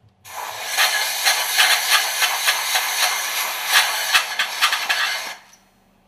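Compressed air blowing hard through the oil ducts of a MAN B&W fuel pump top cover to clear out grease: a loud hiss lasting about five seconds, uneven with small spitting peaks, that cuts off sharply.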